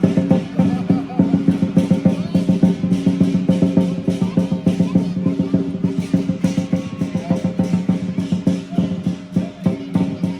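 Lion dance drumming: a drum beaten in very fast rolls, with steady ringing tones sounding under the strikes.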